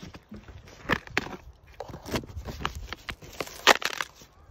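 Corrugated cardboard box being cut and pulled open by hand: irregular scraping, crackling and tearing of cardboard, with a sharper crack a little before the end.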